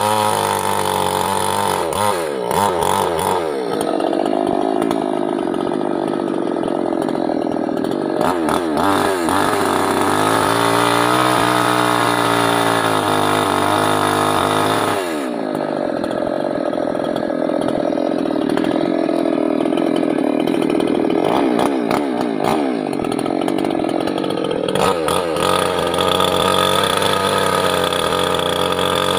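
Chinese-made, Stihl-branded mini petrol chainsaw running at high revs while cutting teak wood. Its pitch repeatedly sags under load and climbs back, with sharp drops about 3, 15 and 25 seconds in.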